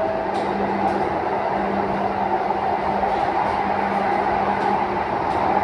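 Pune Metro train running along an elevated track, heard from inside the carriage: a steady rolling noise of wheels on rail with a constant low hum and faint ticks.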